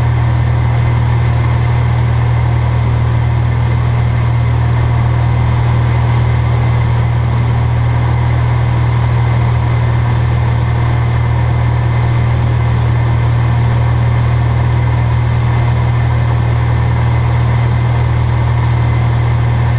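Steady drone of a single-engine light aircraft's engine and propeller in cruise, heard from inside the cockpit, a low hum with an even hiss above it.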